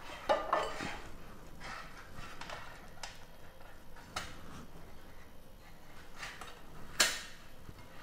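Metal wire grill stand clinking and scraping on a baking tray while a whole marinated chicken is pressed and hooked onto it, with scattered small clicks and one sharper metallic click near the end.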